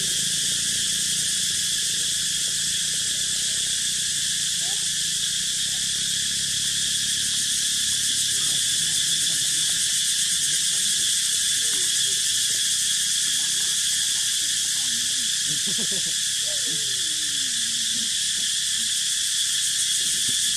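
Steady, loud chorus of insects droning in several high pitch bands without a break, with a few faint low sliding calls now and then in the background.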